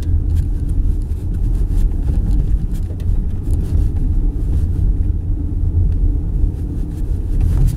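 Steady low rumble of a car driving slowly on a snow-packed road, heard from inside the cabin: engine and tyre noise, with a few faint knocks as it bumps across railroad tracks.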